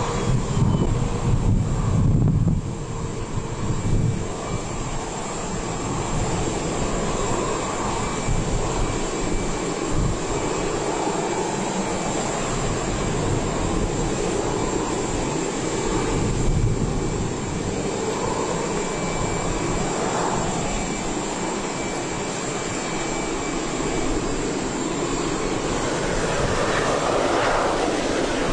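Jet aircraft engines running steadily on an airport apron: an even, continuous noise with a thin high whine over it, a little louder for the first couple of seconds.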